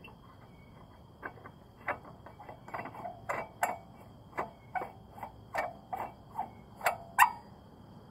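A series of about fifteen short clicks and knocks, sparse at first and then coming two or three a second, with the loudest near the end. A faint steady high whine runs behind them.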